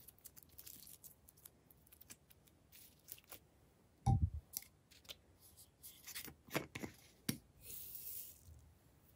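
Faint sticky clicks of clear glossy slime being stretched by hand. A dull thump comes about four seconds in, then a few sharp clicks. Near the end there is a brief rattling hiss of tiny beads being shaken out of a plastic container into a glass tray.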